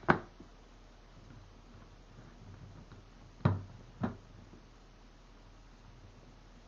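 Three sharp knocks of hard plastic and metal parts being handled on a plastic tool box and its padlock latch: one right at the start, then two close together about three and a half seconds in, with quiet between.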